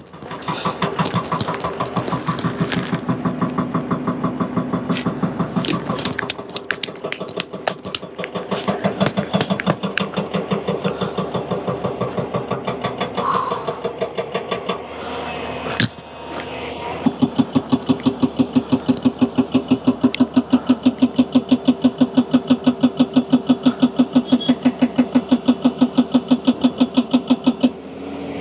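Car engine running, uneven at first, then settling into a steady, regular pulsing from about halfway through, with a sharp click just before the change.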